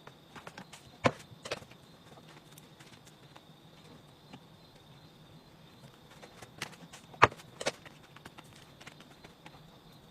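Light clicks and taps of kitchen utensils, with two pairs of sharp knocks about half a second apart: one pair about a second in, the other about seven seconds in.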